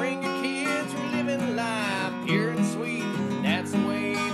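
Background music led by a strummed acoustic guitar, with some sliding melody notes above it.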